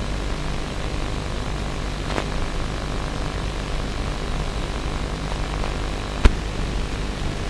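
Radio-controlled model aircraft's motor and propeller running steadily under a rushing, wind-like noise with a low rumble. A sharp click comes about six seconds in.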